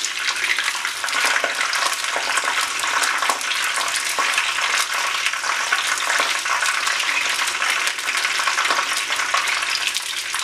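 Chicken dumplings deep-frying in hot oil: a steady, dense sizzle and crackle of bubbling oil.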